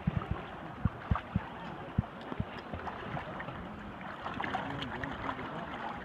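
Sea water splashing and sloshing as a snorkeler swims close by, with several dull thumps in the first two seconds.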